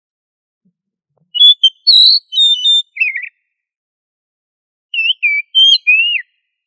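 Oriental magpie-robin (kacer) singing: two short phrases of clear whistled notes that slide up and down, the first about a second and a half in, the second near the end, with silence in between.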